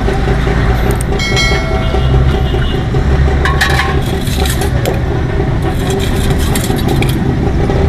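Steady low rumble of street traffic. Over it, a steel spoon clinks against steel serving bowls: one ringing clink about a second in, then a clatter around the middle and scattered clicks near the end.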